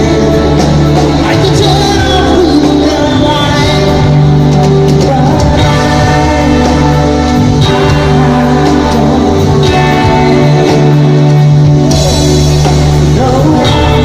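Live band playing a pop-rock song on drums, bass, electric guitar and keyboards, with a lead vocal over it.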